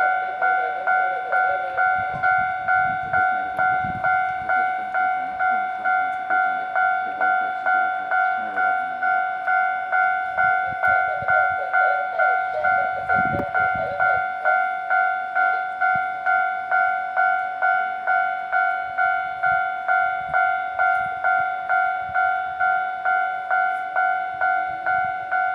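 Japanese railway level-crossing alarm ringing, an electronic bell sounding about two dings a second without a break. Low rumbles come in under it twice, a couple of seconds in and about halfway through.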